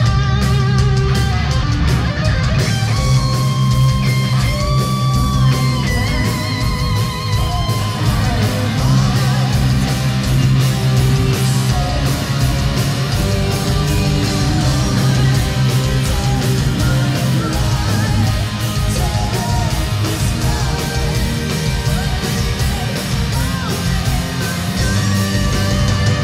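A live heavy metal band playing at full volume: a distorted electric guitar plays a lead over fast, steady drumming.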